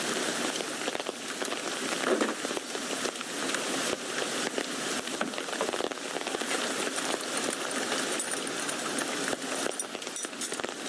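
Steady rain falling on a tent, a dense hiss made up of many small drop ticks.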